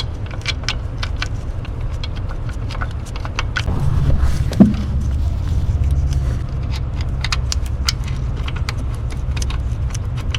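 Sharp metallic clinks and taps of bolts, retaining plates and tools being handled and fitted while mounting a fan hub carrier bearing, over a steady low rumble that grows louder for a few seconds in the middle.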